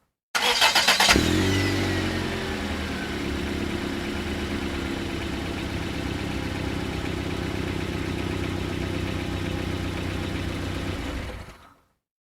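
Car engine cranked by the starter for under a second, catching about a second in with a short flare of revs and a falling whine, then settling into a steady idle that fades out near the end.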